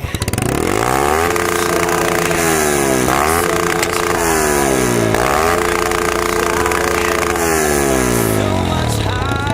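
Small single-cylinder four-stroke motorcycle engine fitted with a modified performance camshaft, revving. Three times the revs climb quickly and hold high, then fall gradually back.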